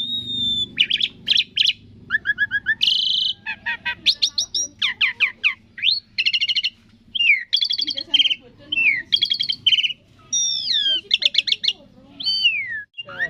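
Asian pied starling (jalak suren) singing a varied, loud song of rapid chirps, stuttering trills and gliding whistles, phrase after phrase with only short gaps.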